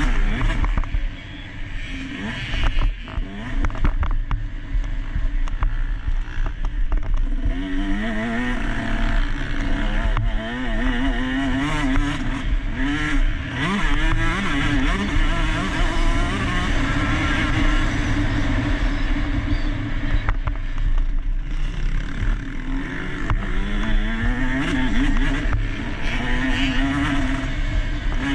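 KTM SX150 two-stroke motocross engine racing, its revs rising and falling again and again, over a steady low rumble.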